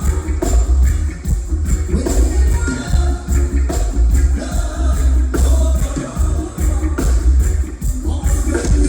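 Live reggae band playing, with a sung vocal over a heavy, pulsing bass line.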